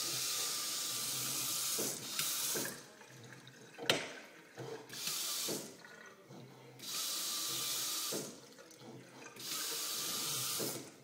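Delta Touch2O kitchen faucet's pull-down spray head running water into a stainless steel sink, cutting off and coming back on three times in a few seconds, with a sharp click about four seconds in. The faucet is switching itself on and off, a malfunction that the owner ties to the hose being pushed up.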